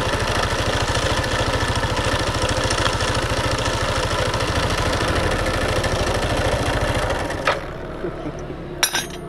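Motorcycle engine running steadily at idle with a fast, even firing pulse, then shut off about seven seconds in. A few sharp metallic clinks follow near the end.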